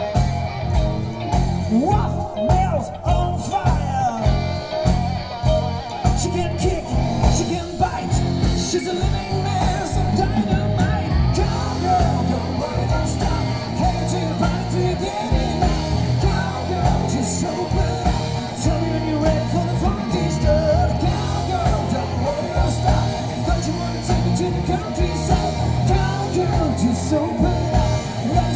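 Hard rock band playing live: Gibson Les Paul electric guitar, bass guitar and drums with keyboards, and a singer's voice over the band.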